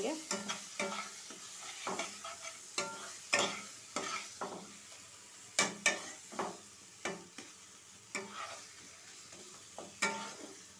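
Spatula stirring and scraping a thick onion-and-spice masala paste frying in mustard oil in a non-stick kadhai: irregular scrapes over a faint sizzle, with a few sharper knocks of the spatula against the pan.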